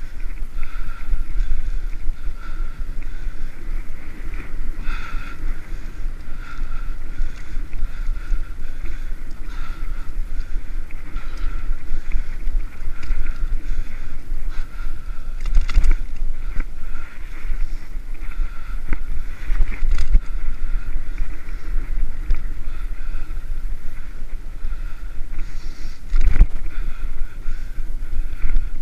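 Steady wind rumble on the microphone of a camera on a moving bicycle, mixed with the hiss of 700x32 tyres rolling on asphalt at about 25 km/h. A few sharp knocks from bumps in the path break through, the loudest near the end.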